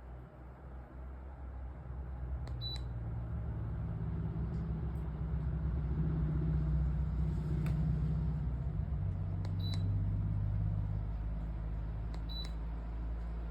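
LEVOIT tower fan running with a low hum that grows louder over the first few seconds, then holds. Three short, high beeps sound over it.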